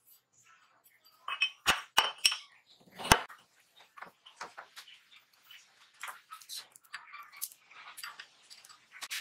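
Steel workshop parts being handled: a few sharp metallic clinks close together in the first few seconds, then lighter, scattered clicking and rattling as a motorcycle roller chain is picked up and moved.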